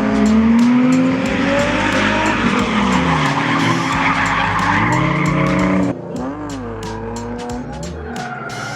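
Drift cars sliding, engines revving up and down under loud, steady tire squeal. About six seconds in the sound cuts abruptly to a quieter engine revving with little tire noise.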